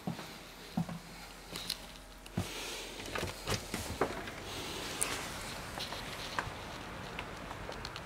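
Scattered clicks and knocks of a balcony door's handle being turned and the door swung open, with footsteps. From about two and a half seconds in, a steady outdoor hiss comes in through the open door.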